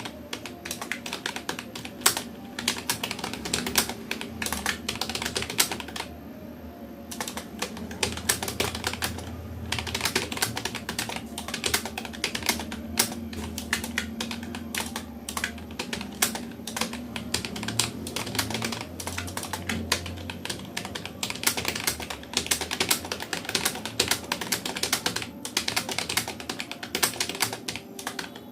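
Fast, continuous typing on a Rapoo computer keyboard, the keys clicking in quick irregular runs, with a short pause about six seconds in.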